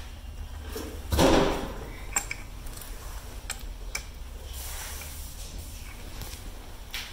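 Metal strut and hub parts being handled during disassembly: a loud scraping clunk about a second in, then scattered light clicks and taps.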